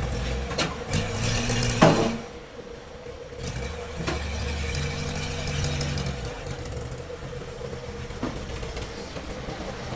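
A motor engine running with a low, uneven hum, with a sharp knock just under two seconds in and a lighter one shortly before it.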